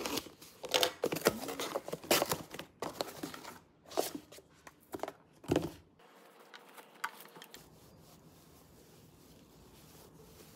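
Box cutter slicing through packing tape on a cardboard box and the box being torn open: a quick run of sharp rips, scrapes and crinkles. It stops about six seconds in, leaving only faint handling sounds.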